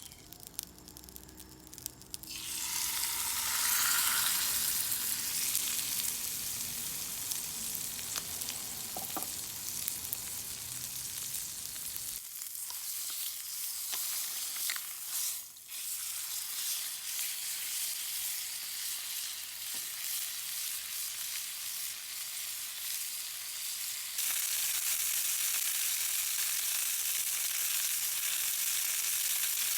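Chicken sizzling over a wood campfire: a dense high-pitched sizzle starts suddenly about two seconds in, after a few sparse crackles. The sizzle jumps in level abruptly twice.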